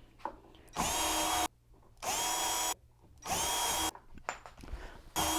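Power drill boring holes in red oak corner blocks, run in three short bursts, with a fourth starting near the end; each burst spins up with a quick rising whine, holds a steady pitch, then stops.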